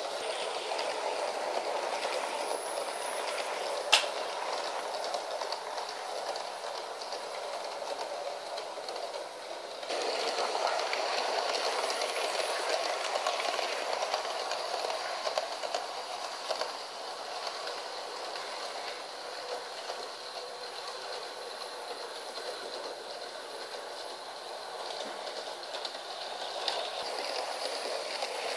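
Model electric train (a 060 EA locomotive hauling double-deck coaches) running along sectional track on a wooden floor, a steady rolling rattle of the wheels on the rails. One sharp click about four seconds in, and the running gets louder from about ten seconds in.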